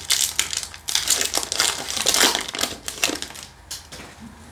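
Foil Yu-Gi-Oh! booster pack wrapper crinkling as it is opened by hand, in a run of rustling bursts that die down after about three seconds.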